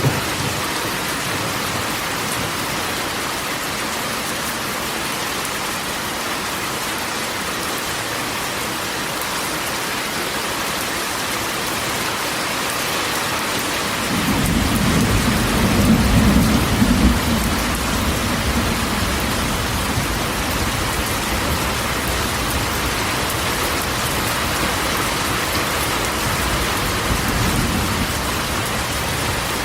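Steady rain drumming on a corrugated metal roof. About halfway through, a low rumble of thunder comes in, swells for a few seconds, then fades back under the rain.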